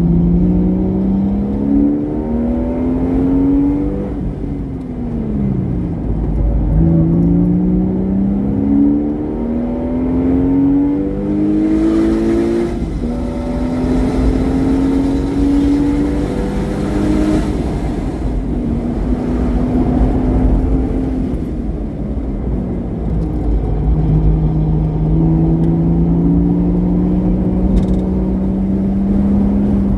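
Porsche Boxster S flat-six with a modified exhaust, driven hard on a track lap: the engine note climbs through the revs with quick steps at each upshift, falls away under braking about four to six seconds in and again around thirteen and eighteen seconds, then pulls up steadily near the end.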